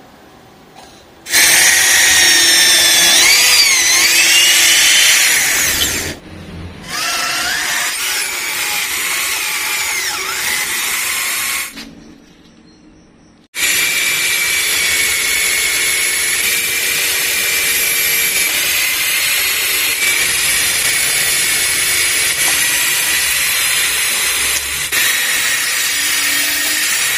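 Corded electric drill in a homemade drill-press stand, running under load as it bores holes. Two runs come first, the motor's whine wavering in pitch as the bit bites. After a short pause comes one long steady run with a constant whine.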